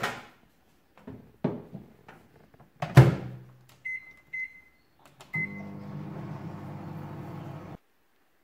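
Sharp microwave oven being loaded and started: a few knocks, the door shut with a loud click about three seconds in, three short keypad beeps, then the oven running with a steady electric hum that cuts off suddenly near the end.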